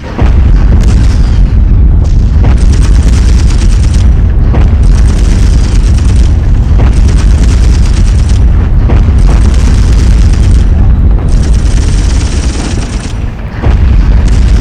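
Air-raid bombing sound effect: a sudden deep explosion just after the start, then a continuous heavy rumble of blasts with a fresh impact every second or two. It dips briefly near the end before another loud blast.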